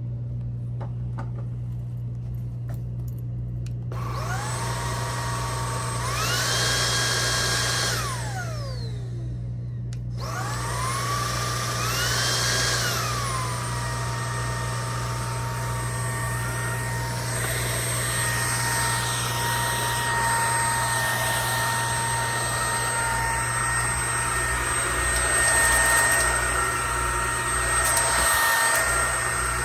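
OXVAC 600 W cordless stick vacuum's motor switched on about four seconds in, its whine rising in pitch, then switched off with a falling whine. It starts again about ten seconds in, rises briefly higher, then settles into a steady high whine.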